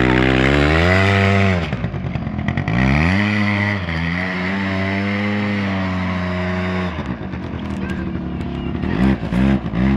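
Small Aeon Revo R100 ATV engine revving up and easing off twice, holding a steady speed for a few seconds, then surging in quick pulses of throttle near the end.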